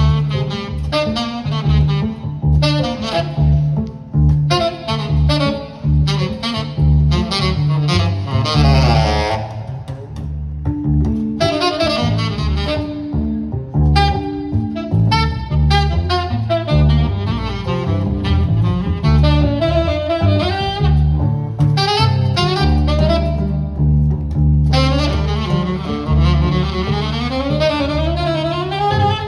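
Live jazz: a saxophone playing a fast, busy improvised line over a double bass, with rising swoops in the saxophone near the end.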